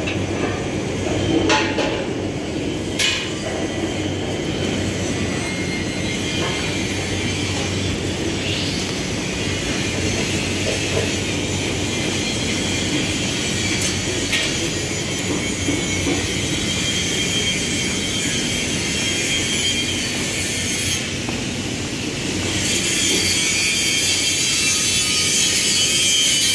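Steel fabrication shop din: a steady machine hum with a few sharp metal clanks and knocks in the first seconds. A louder hiss rises in the last few seconds.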